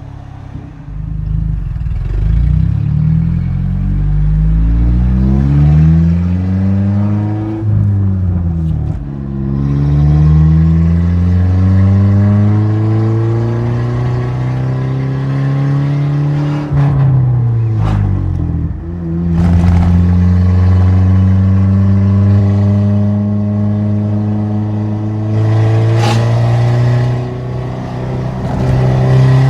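Datsun pickup's engine pulling through the gears with the exhaust cutout open, the note climbing and then dropping sharply at two gear changes before holding steadier near the end. There is an exhaust leak in the note, which the owner puts down to a missing gasket between the cutout and the pipe.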